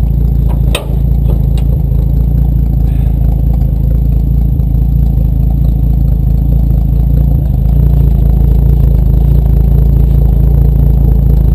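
1954 Dodge M37 Power Wagon's flathead straight-six idling steadily, with a sharp click of the door latch about a second in as the door is opened.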